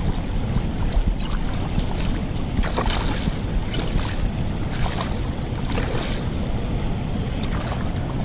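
A hooked striped bass splashing at the water's surface as it is drawn in by hand, several short splashes about once a second over a steady rush of river current and wind on the microphone.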